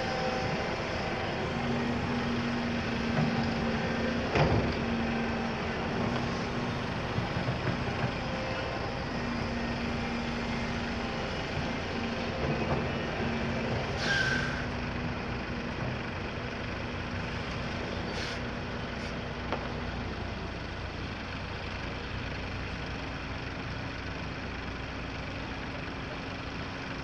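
Volvo EC300 excavator's diesel engine running under load, its tone coming and going as it works. There is a sharp knock about four seconds in, a short hiss of air about halfway, and a few lighter clanks after it.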